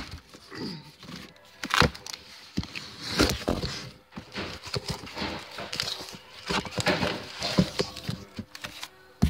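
Cardboard shipping case handled and opened by hand: irregular rustling, scraping and sharp knocks as its flaps are pulled and the boxes inside are moved.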